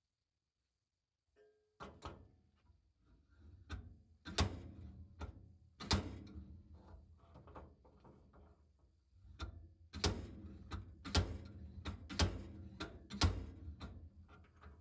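Metal hand tools clicking and knocking as a puller is worked on a Porsche 911 steering shaft to draw the shaft out. The sharp knocks begin about two seconds in and come irregularly, about one to two a second, thickest near the middle and toward the end.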